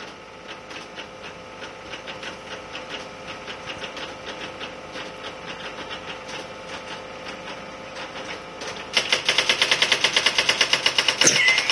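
Electric typewriter humming while keys are typed into its memory, a light run of key clicks. About nine seconds in it starts printing the stored text on its own: a loud, rapid, even clatter of about seven strikes a second.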